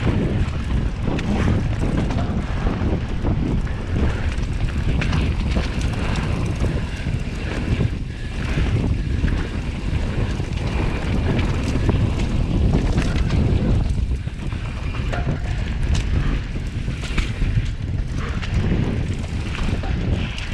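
Wind rushing over the microphone as a Transition Scout 2020 mountain bike runs down a dirt trail, with tyre noise on the ground and many short knocks from the bike over the terrain.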